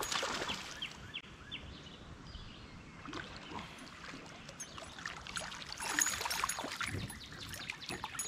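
Light splashing and sloshing of water as a small hooked smallmouth bass is played at the surface beside a kayak, with splashes loudest about six seconds in.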